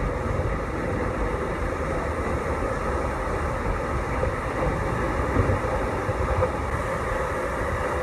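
Seljalandsfoss waterfall pouring down close by: a loud, steady, even rush of falling water with no breaks.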